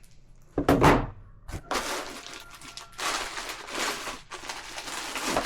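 Packaging being handled while a power tool is unpacked from its box: a loud thunk a little under a second in, a smaller knock shortly after, then uneven rustling and shuffling of the packing.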